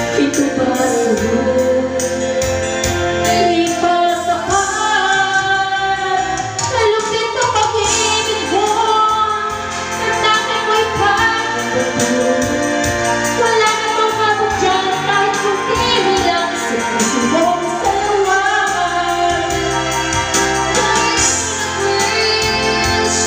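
A woman singing karaoke into a microphone over a loud backing track with a steady beat, holding long notes.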